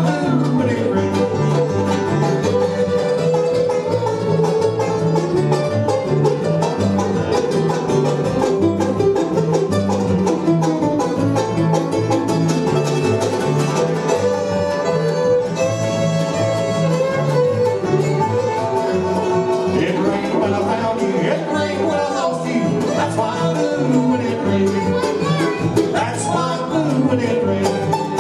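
Live bluegrass band playing an instrumental break, with banjo rolls, guitar and fiddle over a steady bass beat.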